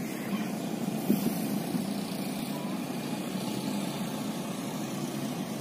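Truck engine idling steadily at a distance, with one soft knock about a second in.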